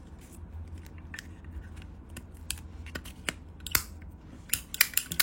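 Scattered light clicks and taps of a metal Zippo lighter being handled, with a quick run of sharper clicks after about four and a half seconds.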